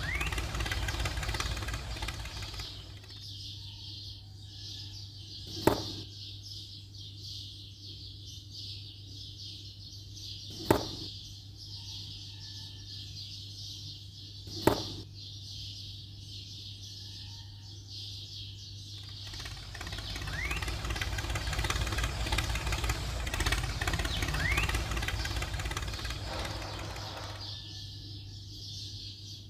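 Thin wooden sticks being dropped into a plastic toy trolley bed, making three sharp clicks several seconds apart. Under them runs a steady low hum with faint bird chirps, and there are two stretches of gritty rustling from the toy being handled on sand, one at the start and one from about two-thirds through.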